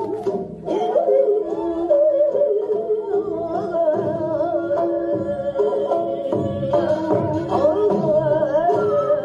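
Korean traditional music: a melody with a wide, wavering vibrato over a steady lower accompaniment.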